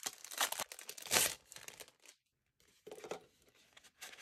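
Frosted plastic planner pocket folders crinkling and rustling as they are handled, in irregular bursts. The loudest burst comes about a second in, then the rustling dies down and returns briefly near three seconds and again near the end.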